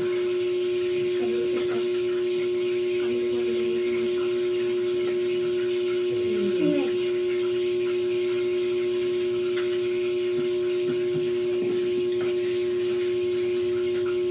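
A loud, steady hum at one unchanging pitch, with a few faint short sounds about six seconds in.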